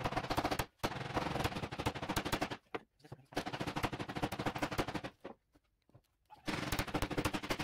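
Rattle of a spray can being shaken, its mixing ball clicking rapidly, in four bursts of one to two seconds each with short pauses between them.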